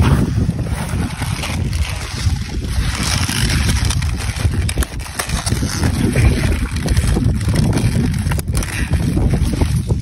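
Wind buffeting the microphone: a steady low rumble with a hiss over it.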